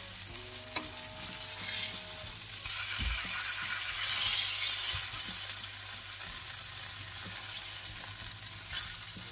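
Flour-coated plaice fillets sizzling steadily as they shallow-fry in olive oil in a stainless steel pan, with one light click a little under a second in.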